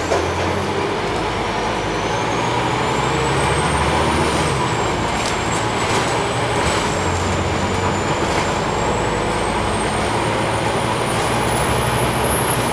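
Scania OmniCity single-deck bus heard from inside while under way: steady engine and road noise, with a thin high whine that rises and falls slowly. The engine's low note changes about four and a half seconds in.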